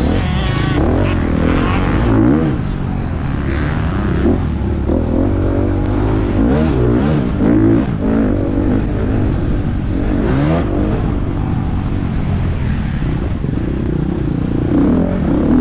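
Four-stroke dirt bike engine under hard riding, its pitch rising and falling again and again as the throttle opens and closes.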